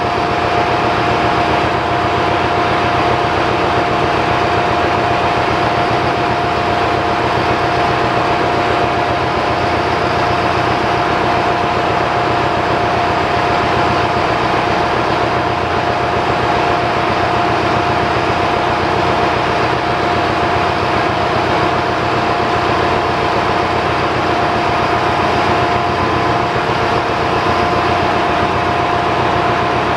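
Loud steady drone of running machinery in a ship's engine room, with a steady whine over it and no breaks or changes.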